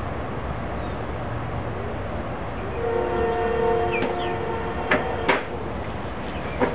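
Cleaver chopping a squirrel carcass on a wooden cutting board: sharp knocks, three in the second half, over a steady low hum. In the middle a steady chord of several tones sounds for about two and a half seconds.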